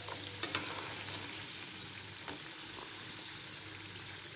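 Hot oil sizzling steadily as batter-coated potato fries deep-fry in a wok, with a few light clicks about half a second in and again a little past two seconds.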